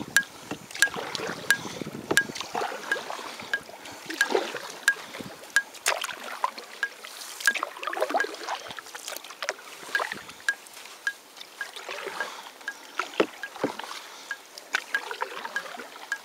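Canoe being paddled on a lake: irregular splashes, drips and gurgles of water from the paddle strokes and along the hull. A faint sharp tick repeats evenly about every two-thirds of a second.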